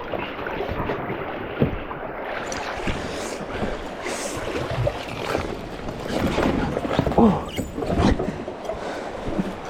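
Water rushing and splashing around a kayak on a moving river, with a few hollow knocks and some wind on the microphone.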